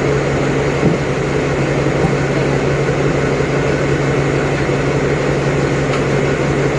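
Diesel locomotive idling steadily with a low, even engine hum. One short knock about a second in.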